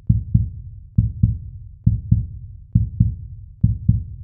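Heartbeat sound: paired low 'lub-dub' thuds, five beats at about 68 a minute, even and regular.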